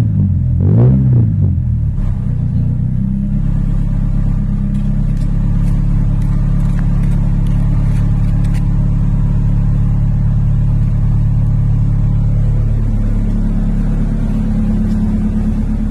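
Honda Civic engine through a resonator-deleted exhaust with a 24-inch muffler: a quick rev that falls back within the first two seconds, then a steady idle whose pitch drops a little about twelve seconds in.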